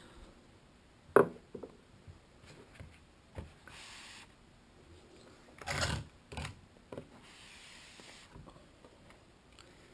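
Quiet handling noises of steel connecting rods and other objects on a tabletop: a sharp knock about a second in as a rod is set down, soft rubbing and sliding, a louder thump about six seconds in, and a few light clicks.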